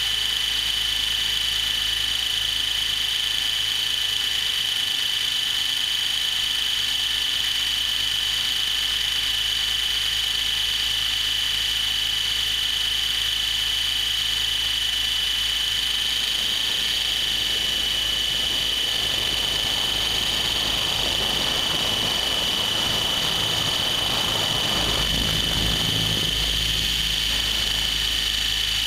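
Align T-Rex 700E electric RC helicopter in flight, heard from its onboard camera: a steady, high-pitched motor and drivetrain whine with rotor hum. A rushing noise grows in the second half.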